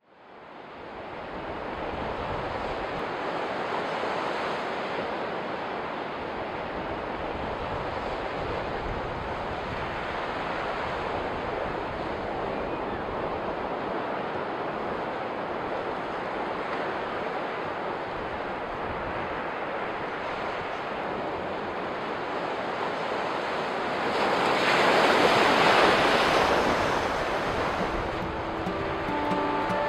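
Ocean surf, waves washing onto a beach as a steady rushing wash that fades in at the start and swells louder about three quarters of the way through as a bigger wave breaks. Bowed cello music comes in at the very end.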